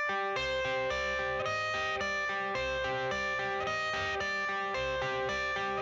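Background music: a guitar-led instrumental intro with a steady beat, playing a run of plucked notes that change about twice a second.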